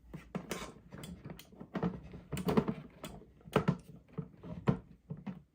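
A series of irregular light clicks and knocks from the Govee humidifier being handled, plausibly at its rear essential-oil diffuser.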